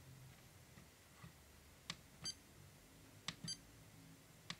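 Front-panel buttons of an iCharger 410 Duo battery charger being pressed: a sharp click about two seconds in and another about a second later, each followed by a short high beep from the charger, then a third click near the end.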